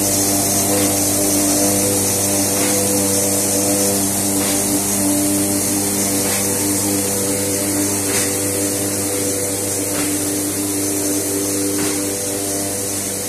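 A high-speed fingerless corrugation machine running: a steady mechanical drone with several held hum tones under a high hiss, and a faint click about every two seconds.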